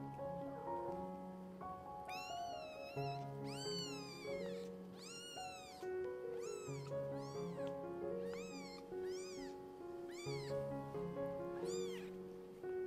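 Newborn kittens mewing over and over: about a dozen short, high-pitched mews, each rising then falling in pitch, beginning about two seconds in. Background music with soft sustained notes runs underneath.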